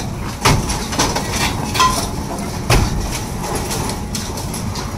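Metal clanks and knocks as an excavator hoists a wrecked Mitsubishi Fuso truck, two sharp knocks loudest, about half a second in and near three seconds in, over steady background noise.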